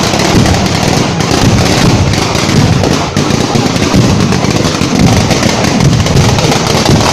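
A string of firecrackers going off in a rapid, unbroken crackle, loud and dense throughout.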